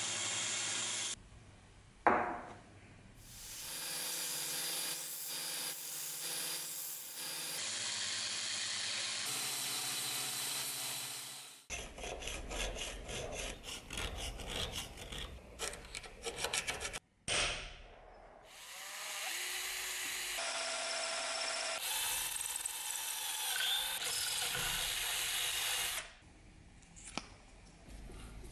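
Workshop metalworking sounds in quick edited cuts. A belt grinder runs steadily, and a file rasps in fast repeated strokes across an aluminium plate clamped in a bench vise. Near the end there are lighter taps and scrapes of a hand tool on metal in the vise.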